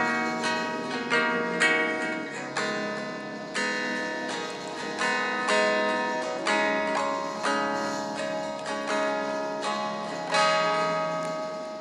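Instrumental interlude of a slow pop ballad with no singing: notes and chords are struck one after another and left to ring out and die away. The last one fades near the end.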